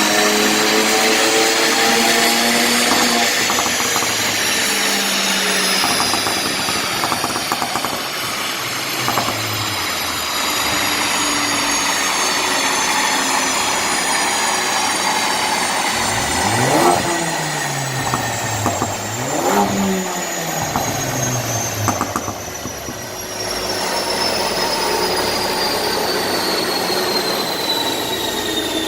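Remapped Ford Focus ST's turbocharged 2.0 EcoBoost four-cylinder engine accelerating for a few seconds, then on a long overrun with light crackles from the exhaust and a high whine slowly falling in pitch. Twice, past the middle, the revs briefly rise and fall again.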